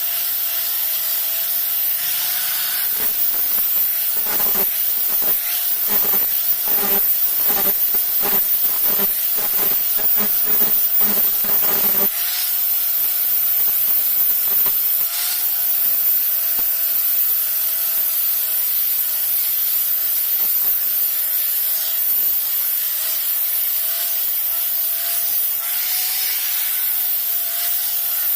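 A steady hiss with a faint wavering tone runs throughout as a machete blade is worked with an abrasive. From about three to twelve seconds in, there are rhythmic rubbing strokes, about two a second.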